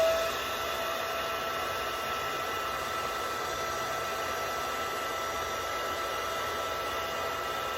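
Handheld hair dryer running steadily: a held motor whine over the rush of blown air. It is drying lace-wig glue.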